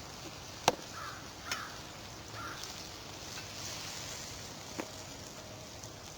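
Campfire ambience: a steady hiss with a sharp pop about a second in and a smaller one near the end, while a crow caws faintly three times.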